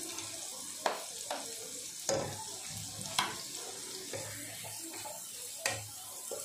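Sliced onion and carrot sizzling in a frying pan as they are stirred, with a steady hiss and several sharp knocks scattered through it.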